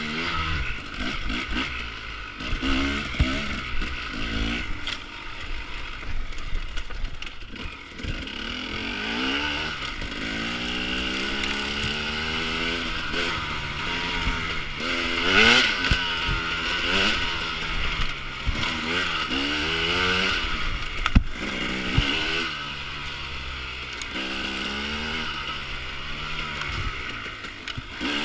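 Enduro dirt bike engine, its revs rising and falling again and again as it is ridden off-road through the gears and throttle changes, with a few sharp knocks along the way.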